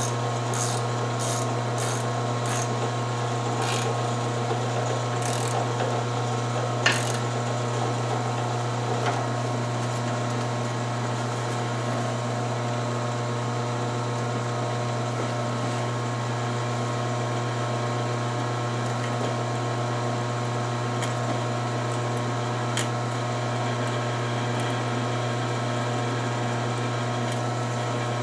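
Drill press running, its bit cutting into a 3/8-inch 4140 steel plate, with a steady motor hum. Sharp ticks come about twice a second over the first few seconds, with a louder single tick about seven seconds in.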